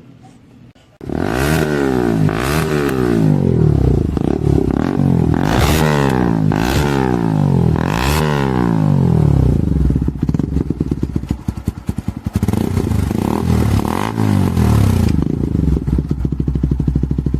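Motorcycle engine started and revved hard in repeated blips, each rising and falling sharply in pitch. It drops back to a rough low idle for a couple of seconds, then is blipped again.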